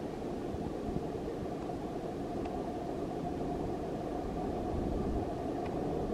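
Tilt Train standing at the platform with its equipment running: a steady hum with a low rumble underneath.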